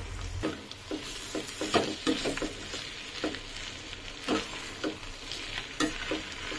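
Perforated metal spatula scraping and knocking against a stainless steel pan in irregular strokes while tossing boiled pasta with fried onions, over a light sizzle from the pan.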